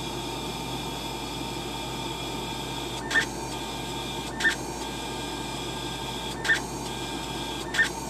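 Stepper motors of a small homemade CNC machine (LumenLab micRo) drawing ruler tick marks with a pen: a steady electrical whine and hum, broken four times by a short buzz as the axes move.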